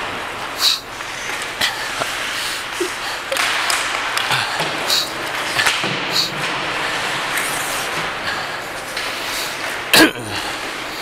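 Ice hockey play on an indoor rink: a steady scraping hiss of skates on the ice with several sharp clacks of sticks and puck, and a loud knock against the boards near the end.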